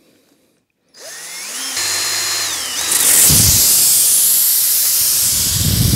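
Cordless drill starting about a second in, its motor whining as the bit bores into the tyre tread. About three seconds in, air begins hissing loudly and steadily out of the freshly drilled hole as the tyre deflates.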